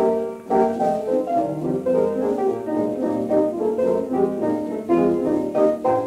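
A 1920s dance orchestra playing an instrumental fox-trot, from an electrically recorded 1926 Victor Orthophonic 78 rpm shellac record.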